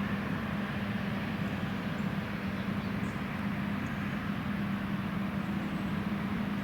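John Deere X9 1100 combine harvester running steadily under load while harvesting oilseed rape, with a constant engine hum and machinery noise.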